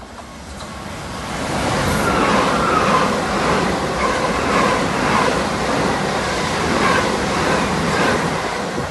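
Southern Class 377 Electrostar electric multiple units running through a station at speed without stopping: the rush and rumble of the wheels on the rails builds over the first two seconds and stays loud as the carriages go by. Short falling high notes recur every second or so through the pass.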